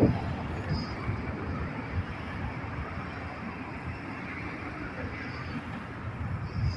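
Steady rumble of a train rolling past, with no horn sounding.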